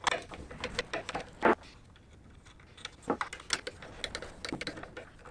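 Irregular metal clicks and taps of a nut driver and Allen wrench working a bolt and nut tight on a metal mounting bracket, with one louder clack about one and a half seconds in.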